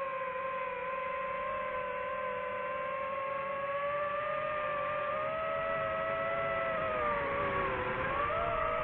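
DJI FPV drone's motors and propellers whining at a steady pitch that climbs slightly. Near the end the pitch dips briefly and then jumps back up as the throttle changes.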